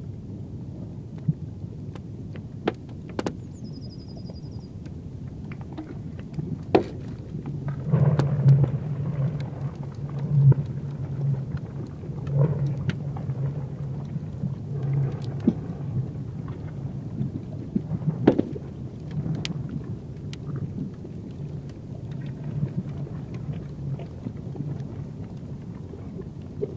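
Freezing sea ice cracking and rumbling as it builds. There are scattered sharp cracks and pings, and from about eight seconds in a low, pulsing rumble comes and goes, with the loudest crack about eighteen seconds in.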